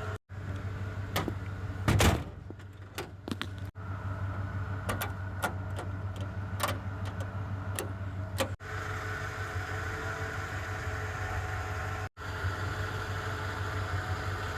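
Vehicle engine idling steadily, with a loud knock about two seconds in and a scatter of sharp clicks and taps over the next several seconds. The sound cuts out briefly three times.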